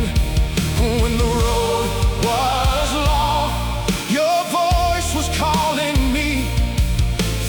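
Worship song in a rock-band arrangement: a melody sung with vibrato over bass and drums.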